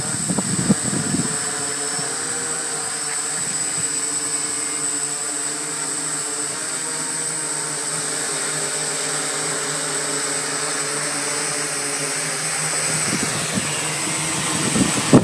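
Large octocopter drone hovering, its propellers and motors giving a steady layered hum with a thin high whine over it. Gusts of wind buffet the microphone near the start and again near the end.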